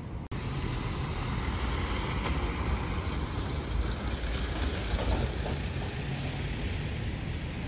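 Outdoor street noise: wind rumbling on the microphone over traffic, with a hiss of tyres on a wet road that swells after a couple of seconds.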